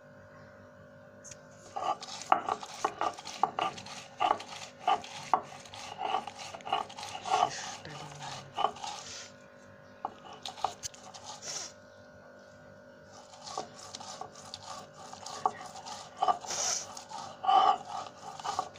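Stone roller grinding and crushing on a flat shil-pata grinding stone: repeated rough rubbing strokes with light knocks of stone on stone, a few a second. The strokes pause for a few seconds midway and then start again.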